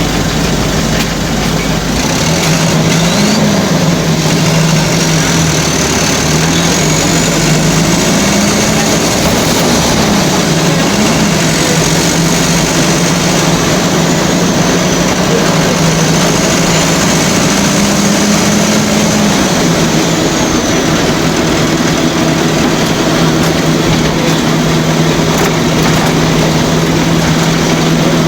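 Volare Fly 9 minibus diesel engine running steadily, its note rising and falling briefly a few times.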